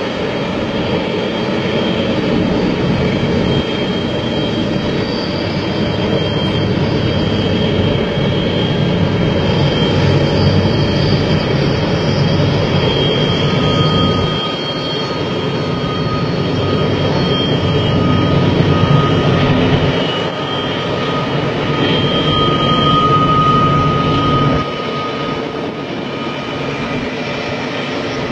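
Long double-stack container freight train running round a tight curve: a steady low rumble, with faint high squealing tones that come and go. The rumble drops a step about 14 seconds in and again near the end.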